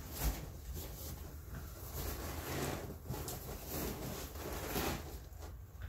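A cardboard shipping box being handled: soft, irregular rustling and scraping, with a light knock just after the start.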